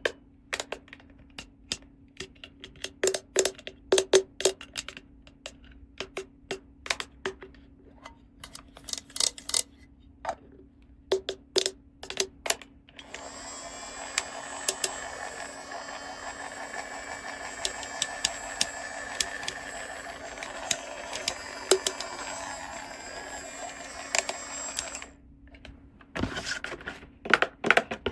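Small plastic toy pieces clicking and tapping as they are handled and fitted together. From about halfway in, a steady hiss with a faint whine runs under the taps for about twelve seconds, then stops, and the clicking goes on.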